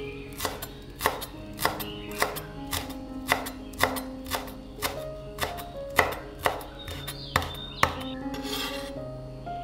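A kitchen knife chopping on a cutting board at a steady pace of about two chops a second, stopping shortly before the end, over background music.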